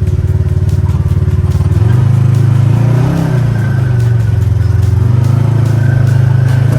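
Polaris RZR side-by-side engine running under load, heard from on board: a pulsing drone for the first two seconds, then steadier, with a brief rev up and down about three seconds in, while the chassis rattles and knocks over rock.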